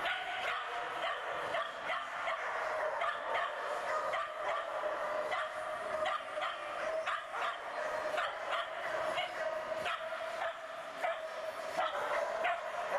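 A dog barking and yipping excitedly in quick, short, high barks, several a second, over faint background voices.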